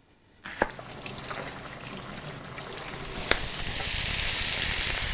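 A single knife stroke on a wooden cutting board, then vegetables sizzling in olive oil in a frying pan. The sizzle builds and grows louder after a knock about three seconds in, as sliced leek is tipped into the pan from a colander.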